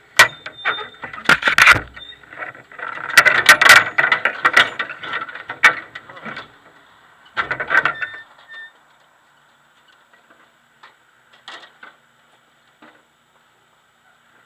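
Sharp clicks, knocks and short clattering runs on the stopped race car's body and chassis, picked up through the car-mounted camera, with the engine off. The knocking stops about eight seconds in, leaving only a few faint ticks.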